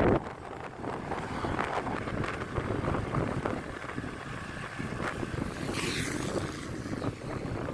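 Wind buffeting the microphone while riding a Honda Click 125i scooter, over a low rumble of road and engine. A brief sharper hiss comes about six seconds in.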